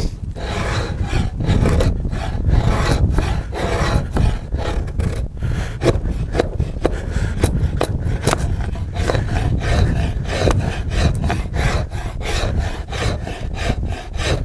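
A hand-forged draw knife shaving a length of wood, the blade scraping along the grain in quick repeated strokes as it takes off shavings.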